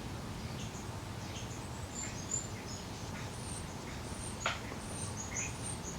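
Small birds chirping in the background, many short high chirps scattered throughout, over a low steady hiss. A single sharp click about four and a half seconds in.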